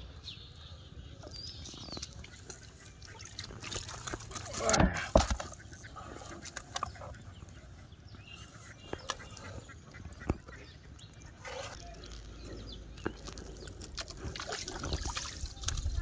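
Water splashing and sloshing in a plastic tub as a hooked common carp is handled and unhooked, with scattered small clicks and knocks. There is a louder burst of sound about five seconds in.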